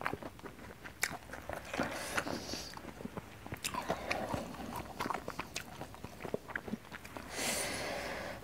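Close-miked chewing by a person eating: many small wet mouth clicks and soft crunches of a mouthful of food. A short breathy rush near the end.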